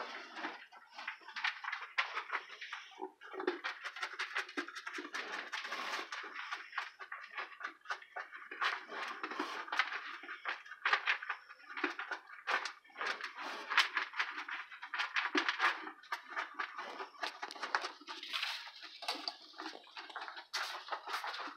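Hand-milking a LaMancha goat: milk squirting in quick, repeated streams into a stainless steel pail. The goat crunches its feed alongside.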